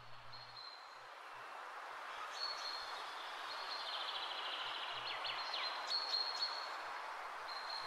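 Birds chirping and trilling over a soft, steady rushing hiss that slowly grows louder; a thin high whistle comes and goes.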